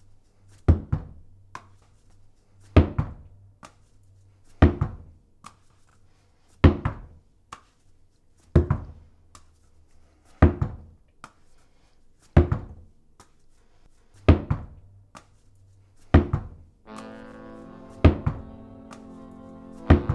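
Background score: a slow, heavy double-thump beat repeating about every two seconds over a low drone. A sustained chord comes in near the end.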